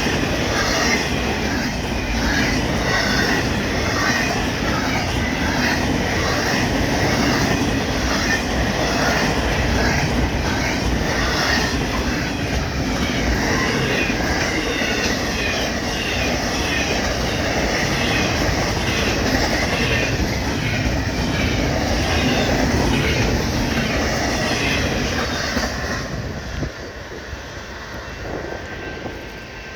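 Union Pacific intermodal freight train's cars rolling past, steel wheels clattering over the rails in an even rhythm with some wheel squeal. The sound drops off suddenly near the end.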